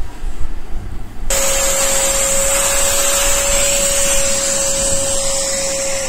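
Eureka Forbes Super Clean handheld vacuum cleaner switched on about a second in, its motor then running steadily with a single high whine over a rush of air.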